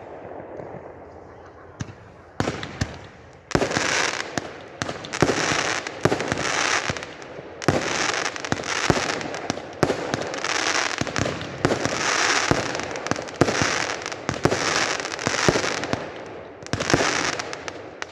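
Fireworks display: after a fading tail, bangs start a couple of seconds in and build into a rapid barrage of bursts with crackle, in waves about once a second, easing off near the end.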